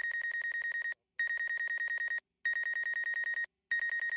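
A DJI Mavic Air remote controller sounding its warning: a rapid high-pitched beeping, about a dozen beeps a second. The beeps come in runs of about a second with short breaks between them.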